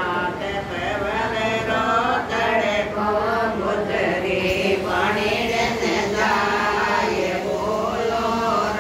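Women's voices singing a Marwari Gujari bhajan, a devotional song to Krishna, with a steady sung melody.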